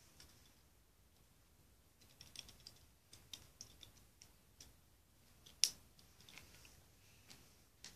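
Small plastic Lego pieces clicking and rattling as they are handled and pressed together during building: a scatter of light clicks from about two seconds in, with one sharper snap a little past halfway.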